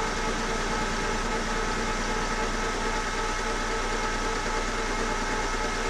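Metal lathe running at a steady speed, its spindle and chuck turning with an even mechanical hum and a few steady high tones.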